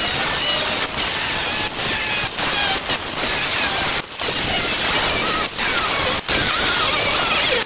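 A power tool cutting sheet steel: a loud, steady hiss broken by brief pauses several times, with faint wavering squeals.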